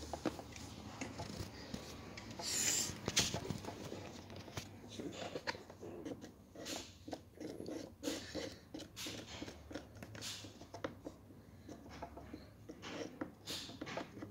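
Irregular light plastic clicks, taps and rubbing from handling a Smoby Chef chocolate factory toy as its chocolate taps are opened.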